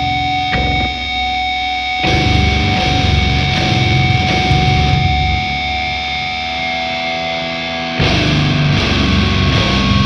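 Extreme metal music with distorted guitars. The full band comes in about two seconds in, eases off a little, then hits again sharply near the end.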